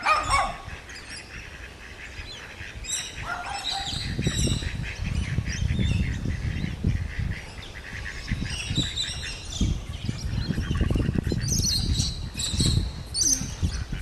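Mallard ducks quacking among other bird calls, over a steady low rumbling noise.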